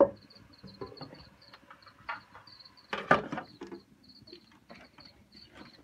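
Crickets chirping steadily, with a few knocks and clatters of a large metal tray being handled as a lid on a cooking pot; the loudest clatter comes about three seconds in.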